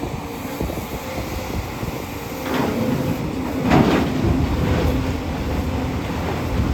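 JCB 245 HD LR long-reach excavator's diesel engine running steadily under load while digging rock, with two louder scrapes of the bucket against rock, the second, about four seconds in, the loudest.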